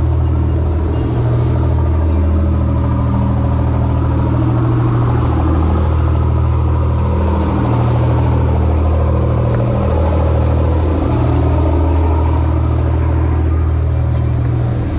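Boat engine running steadily under way: a constant low drone with a rushing noise over it.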